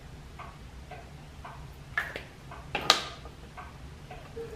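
Two sharp metallic knocks about a second apart as the small steam engine's flywheel is taken in hand and turned to set it at the mark. Under them are a steady light ticking, about two beats a second, and a low machinery hum.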